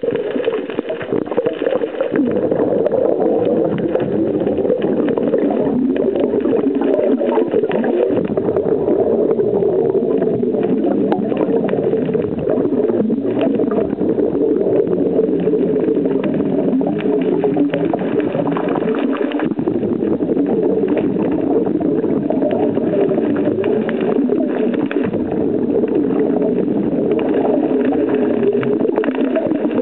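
Muffled underwater sound picked up by a camera underwater, a steady wash of water noise thick with fine crackling clicks.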